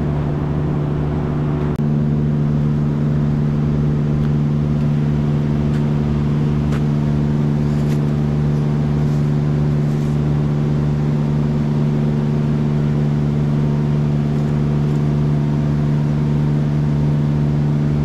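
Steady low mechanical hum of barn machinery, with a few faint knocks over it. The hum steps up slightly in level about two seconds in.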